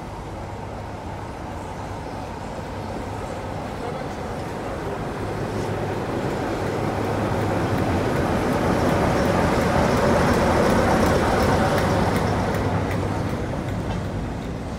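Class 47 diesel locomotive's Sulzer twelve-cylinder engine running as the locomotive passes slowly at close range. It grows louder, peaks about ten seconds in, then eases off as the wagons roll by, with light clicks from the wheels on the rails.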